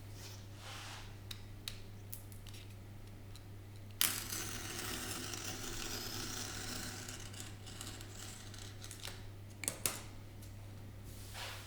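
Hand work on a wooden speaker cabinet: a few light clicks, then a rough scraping noise that starts suddenly about four seconds in, lasts about five seconds and fades, followed by a couple of sharp clicks. A steady low hum runs underneath.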